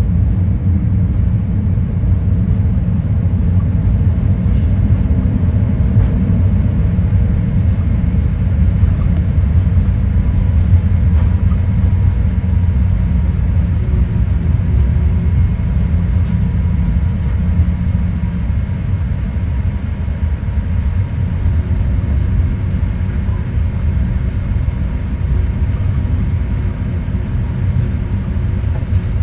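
Cabin noise inside a Boeing 787-8 rolling on the runway after landing: a steady low rumble from the wheels on the pavement and the engines, easing a little in the second half.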